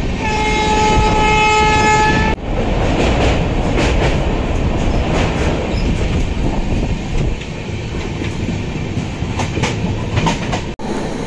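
A train's locomotive horn holding one long steady note for about two seconds, then cut off, followed by the steady rumble and clatter of the coaches running at speed on the track, heard from an open coach door.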